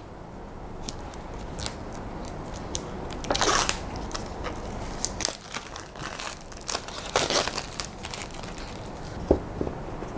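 Cardboard product box being opened by hand: the tight lid scraping and rustling as it is worked loose, in two short bursts a few seconds apart among small clicks, then a couple of light knocks near the end.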